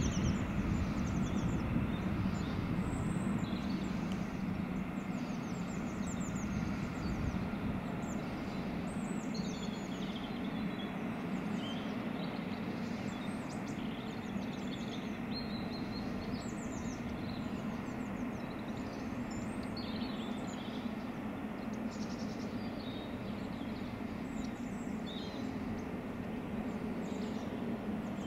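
Steady low drone of a Class 66 diesel locomotive's two-stroke V12 hauling a train of empty gypsum wagons away, easing slightly over the first few seconds and then holding, while small birds chirp throughout.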